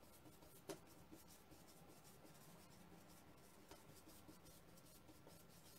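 Faint scratching and light tapping of a paintbrush working paint on canvas, with one slightly louder tap under a second in.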